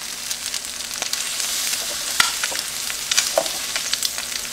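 Eggs, hash browns and bacon frying on a Farberware 20-inch electric nonstick griddle, a steady sizzle, with a spatula scraping and tapping on the griddle surface a few times.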